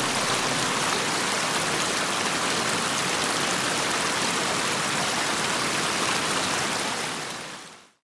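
Steady rush of water from a small waterfall cascading over rocks, fading out over the last second.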